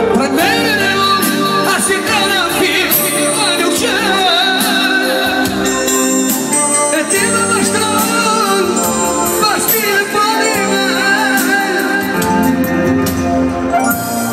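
Live folk-pop band: a man sings a wavering, ornamented melody into a handheld microphone over Korg electronic keyboard accompaniment, amplified through PA speakers.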